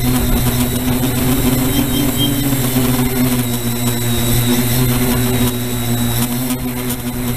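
Quadcopter's electric motors and propellers humming steadily in flight.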